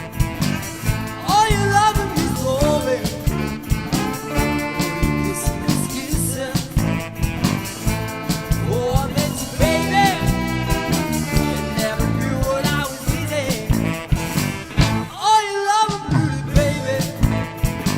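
Live electric blues band playing: drums, bass and guitars under a lead line that bends and wavers in pitch in several phrases.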